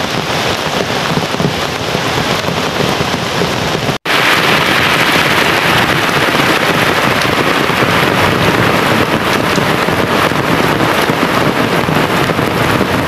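Heavy rain pouring steadily onto puddled ground, a dense even hiss. About four seconds in it cuts out for an instant and comes back louder and hissier.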